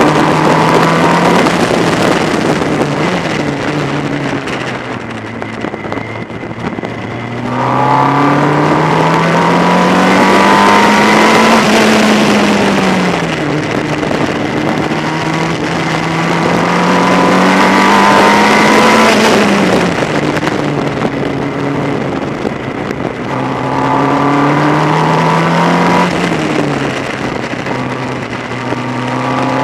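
Formula Ford race car's engine heard onboard from behind the driver, its pitch climbing steadily under acceleration and dropping sharply several times as the driver lifts, brakes and shifts for corners.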